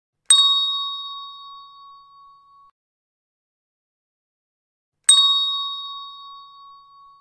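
A bell-like chime struck twice, about five seconds apart; each strike rings on one clear pitch with brighter overtones and fades out over about two seconds.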